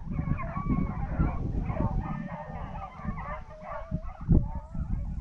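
A pack of beagles in full cry on a rabbit trail: many baying voices overlapping at once. Low rumble and thumps on the microphone run underneath.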